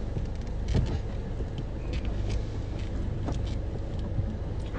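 Steady low rumble of a car's engine and road noise heard from inside the cabin while it is driven, with a few faint soft clicks.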